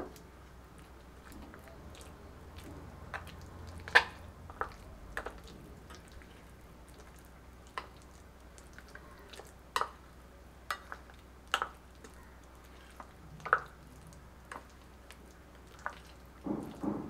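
A metal spoon stirring a thick, wet shrimp and banana-flower paste mixed with mustard oil in a glass bowl. Soft squelching runs through it, with a dozen or so sharp clicks where the spoon knocks against the glass.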